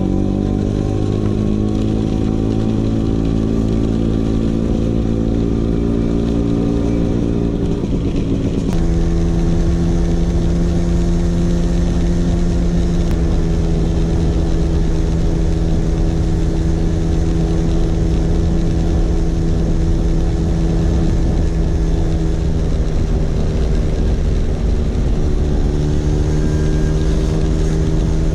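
Vespa PX 150's single-cylinder two-stroke engine running through a DRC Victory Racing aftermarket exhaust while the scooter is ridden. The engine note climbs for the first nine seconds, changes abruptly, then holds at a steady cruising pitch.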